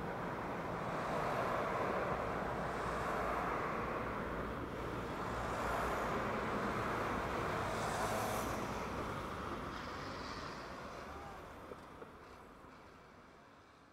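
Road traffic noise: a steady rush of vehicles with a few cars swelling past, fading out over the last few seconds.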